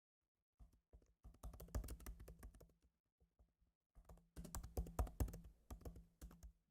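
Typing on a computer keyboard: quick runs of keystrokes in two bursts, with a pause of about a second between them.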